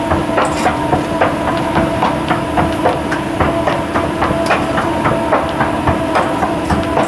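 Escalator running: a steady motor hum with a regular clatter of the steps, about three clicks a second.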